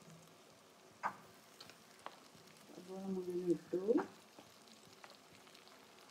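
Sliced onions falling into hot oil over fried chicken in a metal pan, sizzling faintly, with a light click about a second in. A brief murmur of a voice about three seconds in.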